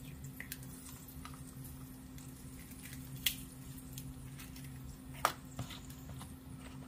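Eggshell cracking and small sharp clicks of shell against a stainless-steel frying pan as a whole egg is broken into it. Two louder clicks come about three and five seconds in, over a steady low hum.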